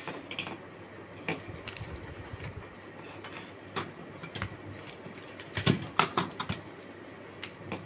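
Scattered light clicks and knocks of a digital multimeter and its test probes being handled on a workbench, with the loudest quick cluster of taps a little after halfway.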